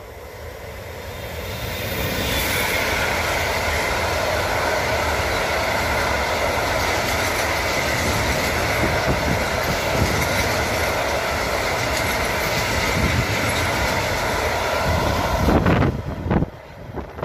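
Freight train of pressurized gas tank wagons rolling past close by. The sound swells over the first couple of seconds as the electric locomotive arrives, then holds as a loud, steady rumble of wagon wheels on the rails. Near the end a few gusts of wind buffet the microphone.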